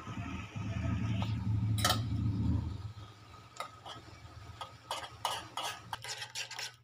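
A metal spoon stirs instant noodles in a steel pot of boiling water, clinking repeatedly against the pot. A low rumble fills the first three seconds or so.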